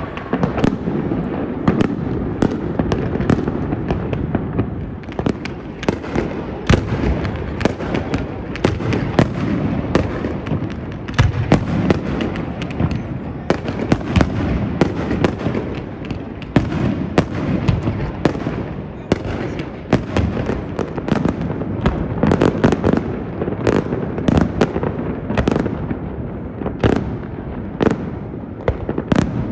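Fireworks display: a rapid string of bangs and crackling bursts, several a second, over a continuous low rumble of shells going off.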